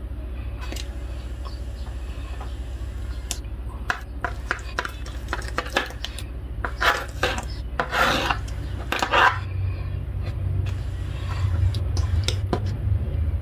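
A knife cuts through boiled octopus tentacles on a plastic cutting board, making a series of short scraping strokes that are loudest past the middle. A steady low hum runs underneath.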